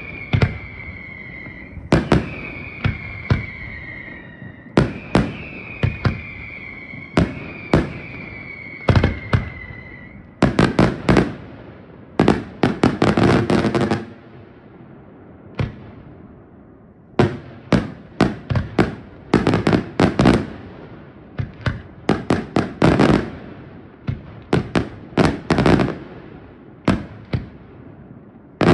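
Aerial fireworks bursting with many sharp bangs. Through the first ten seconds, repeated whistles that fall slightly in pitch sound between the bangs. A dense rapid volley follows a few seconds later, then more bangs in quick groups.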